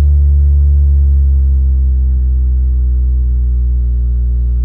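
Low bass test tone played through the Vonyx SPJ1000A powered speaker's woofer, gliding slowly down in pitch as part of a frequency sweep. It is a loud, steady hum with overtones above it.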